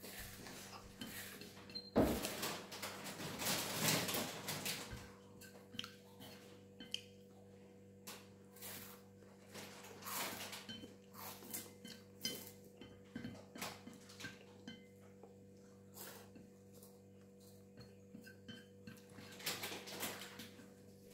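Wooden chopsticks clicking and scraping on a ceramic plate as spicy instant ramen noodles are picked up and eaten, with a louder stretch of slurping and chewing a couple of seconds in and again near the end.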